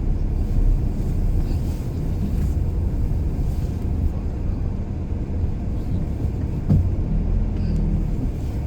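Steady low rumble of a van's engine and tyres heard from inside the cab while driving, with one light knock about two-thirds of the way through.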